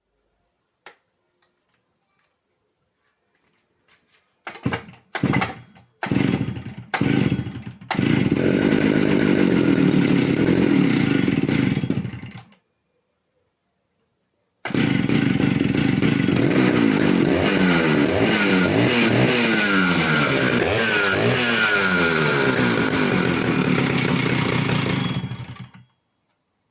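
Stihl two-stroke chainsaw engine catching in a few short bursts, then running steadily for about four seconds. It cuts out for about two seconds, then runs again for about ten seconds, the revs rising and falling, before dying away near the end.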